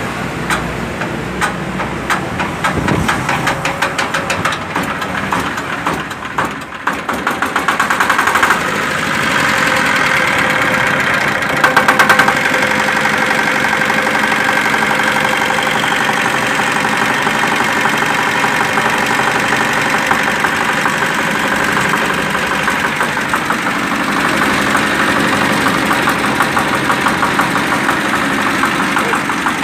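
Jiangdong ZH185 10 hp single-cylinder diesel engine running with a rapid, even knock. About seven seconds in it picks up speed and gets louder, then runs steadily at the higher speed.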